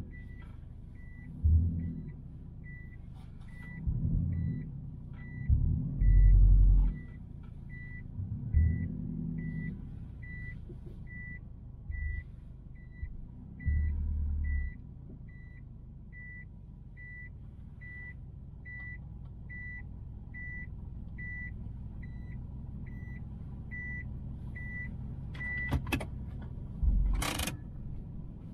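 Cabin noise inside a 1999 Subaru Forester STB: a steady low road-and-engine rumble with louder low surges now and then in the first half. A high beep repeats a little faster than once a second and stops near the end, followed by a couple of short sharp noises.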